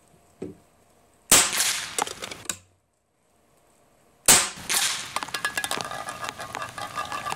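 Two shots from an AGT Vixen PCP air rifle, about three seconds apart, each a sharp crack with a short tail. The second is followed by a few seconds of small ticks and clatter.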